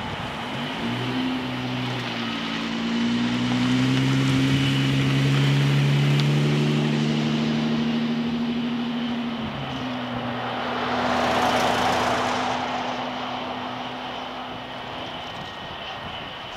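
A low engine drone with a steady pitched hum that swells and then fades, joined about eleven seconds in by a broader rushing swell.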